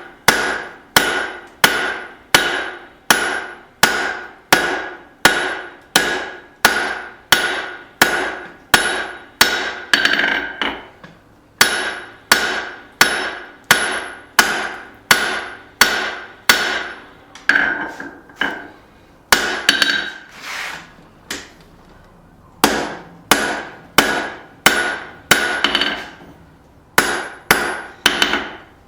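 Hammer blows on hot steel on an anvil, about two a second with a short ring after each, broken by a few brief pauses: forging the set-down on a tong jaw.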